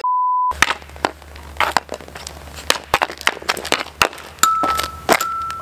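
A short steady test-tone beep about half a second long, then a street-hockey stick tapping and striking a plastic ball on asphalt: a run of sharp clicks and smacks. A faint steady high tone sounds near the end.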